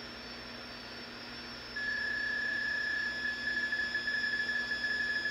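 Shortwave static hiss from a National NC-173 tube receiver. About two seconds in, a PSK31 digital signal comes in as a steady whistle-like tone, which after a second or so turns into a rapid pulsing warble as it carries data.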